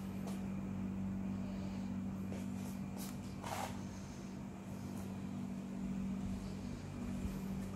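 Car engine idling steadily, a low even hum, with a brief rustle about three and a half seconds in.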